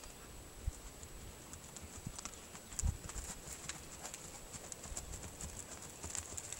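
Hoofbeats of a ridden gaited horse moving at a gait over a grassy field, faint at first and growing louder and closer near the end as the horse comes past.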